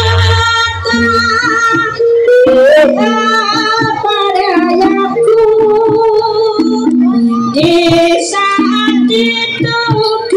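Live Javanese jaranan ensemble music: a high, wavering melody line that bends in pitch, carried over percussion, with singing.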